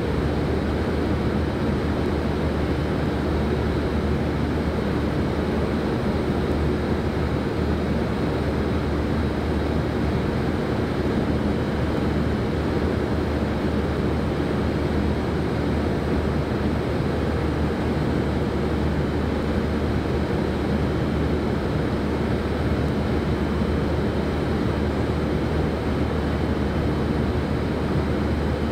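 Steady machinery noise from a car assembly plant floor, an even rush with a constant low hum and a faint high whine, unchanging throughout.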